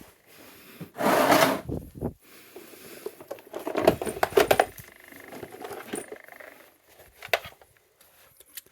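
Handling noise: rubbing, rustling and knocks as gear is picked up and moved about, with a loud scrape or rustle about a second in and a sharp click near the end.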